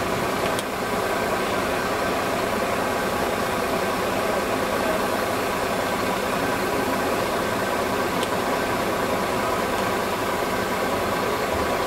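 An engine idling steadily under an even hiss, with no change in pitch or level.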